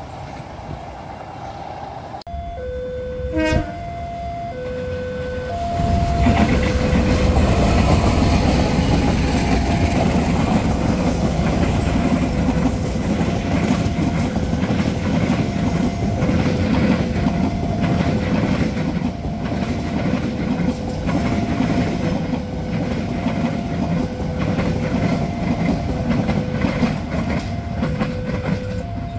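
Railway level-crossing alarm sounding a steady alternating two-tone warning, high and low tones trading places about every second. From about six seconds in a train passes close by, its loud rumble and wheel clatter over the rail joints running under the alarm. A brief sharp sound comes about three and a half seconds in.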